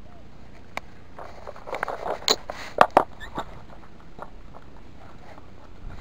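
Handling and movement noise: rustling with a few sharp clicks and knocks, loudest between about two and three seconds in.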